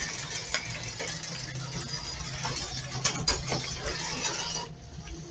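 FTC competition robot driving across the field: its drive motors and gearing whir steadily with a low hum and scattered clicks and knocks, dropping away near the end.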